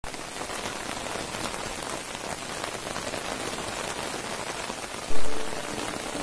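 Steady rain falling on tiled roofs, leaves and a wet stone courtyard. About five seconds in, a brief loud low rumble swells up and dies away within half a second.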